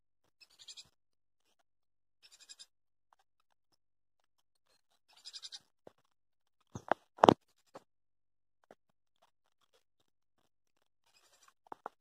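Spinning fishing reel ratcheting in short high-pitched bursts every few seconds while a hooked fish is fought on the line. Two or three sharp knocks about seven seconds in are the loudest sounds.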